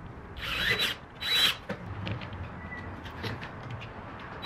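Cordless drill boring into the wall of a 4-inch PVC pipe: two short bursts of the motor in the first second and a half, each rising and falling in pitch, followed by light ticks.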